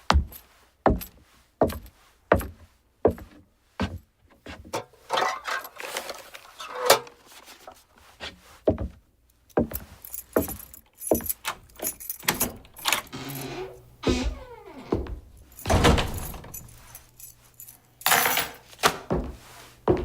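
Foley sound effects: a run of sharp knocks and thuds, about one a second at first and then closer together, with stretches of jangling or rattling noise between them.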